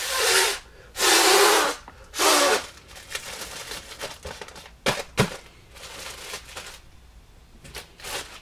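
Polyethylene self-seal poly mailer being ripped open and crumpled by hand: three loud plastic rips in the first two and a half seconds, then quieter crinkling with two sharp snaps about five seconds in.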